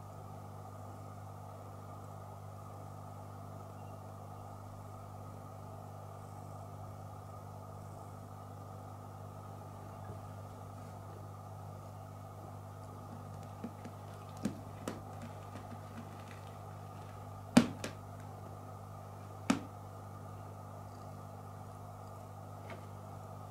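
A steady low hum with a handful of short, sharp taps and clicks in the second half, two of them much louder than the rest.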